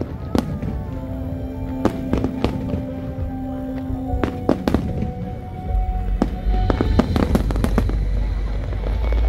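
Fireworks display: aerial shells bursting one after another in sharp bangs. The bangs come thicker over a deepening low rumble from about six seconds in.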